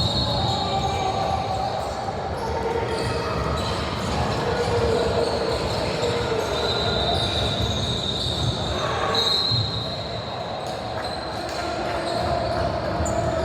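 Basketball game sound in a gym: the ball bouncing on the court and high squeaks, typical of sneakers on the floor, mixed with players' and spectators' voices echoing in the hall.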